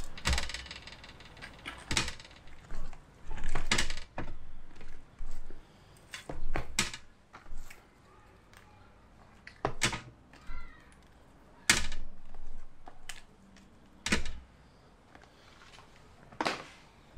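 Plastic meat packaging rustling and crinkling, with about a dozen irregular sharp clicks and knocks as sausages and patties are handled and laid on a metal grill rack.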